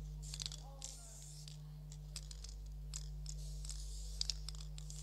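Aerosol spray-paint can hissing in many short bursts as red letters are sprayed onto a cardboard box, over a steady low hum.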